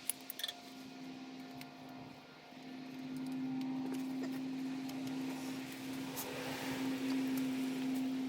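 Steady machine hum with one low tone, growing louder about two and a half seconds in, with a couple of small clicks near the start.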